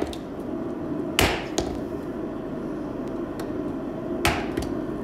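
A hand hammer strikes a freshly twisted octagonal steel bar laid on a wooden stump, knocking it straight. There is a heavy blow about a second in with a light tap just after it, and another blow about four seconds in.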